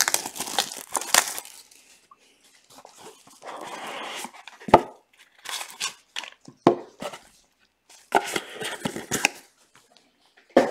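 A small cardboard trading card box being handled and opened: scraping and rustling of the cardboard as the lid slides off, with a sharp knock about five seconds in and a few lighter clicks.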